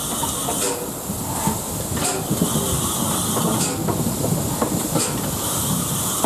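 LMS Coronation Class 4-6-2 steam locomotive moving slowly, with a steady hiss of steam and a louder steam beat about every second and a half over low rumbling and knocking from the running gear.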